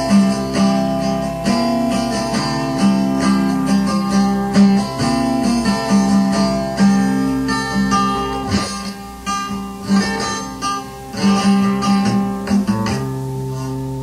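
Acoustic guitar strummed and picked, played back from a 1983 cassette tape recording. About 13 seconds in, the playing stops and a steady held tone remains.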